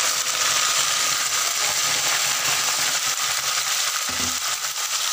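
Marinated minced mutton (keema) sizzling steadily as it is slid into hot oil in a frying pan, with a brief low knock about four seconds in.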